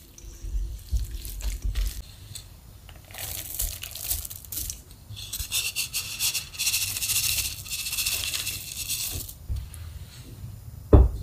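A wooden spatula stirring sticky natto and koji in a stainless steel bowl with soft knocks, then salted kelp strips (shio kombu) tipped from a wooden bowl into the steel bowl with a rustling hiss lasting several seconds. A single sharp knock comes near the end.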